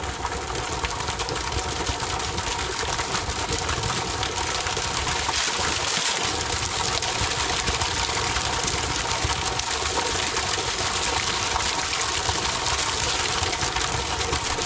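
Spring water running and splashing, a steady rushing.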